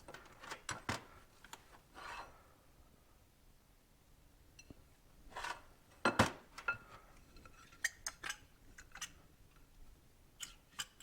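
Small metal motorcycle parts being handled on a workbench: irregular clinks and clicks with a few short scrapes, the loudest knock about six seconds in.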